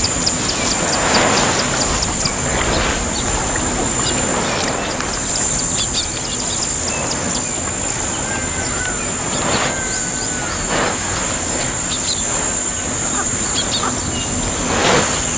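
Elephant herd stirring up dust, heard as several short rushing bursts of noise, over a steady high drone with bird chirps and a few whistled calls.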